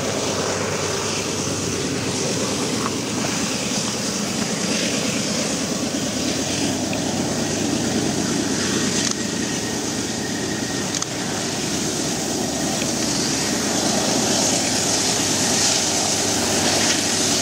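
Several Union Pacific diesel-electric freight locomotives working together, their engines making a steady drone that slowly grows louder as the train approaches.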